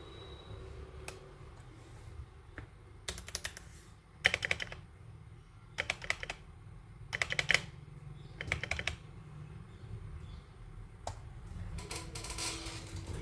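Keychron K8 Pro mechanical keyboard with Gateron Brown switches being typed on: short runs of quick keystrokes with pauses between them, plus a few single key presses.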